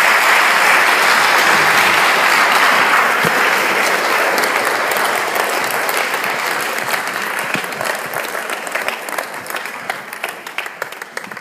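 Audience applauding, a dense sustained clapping that slowly fades and thins into separate, scattered claps near the end.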